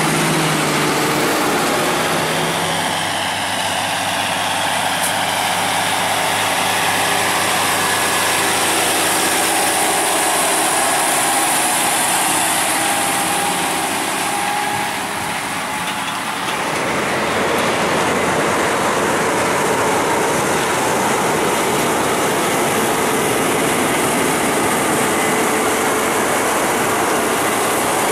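Heavy diesel harvest machinery running steadily, with the sound changing and filling out about 16 seconds in.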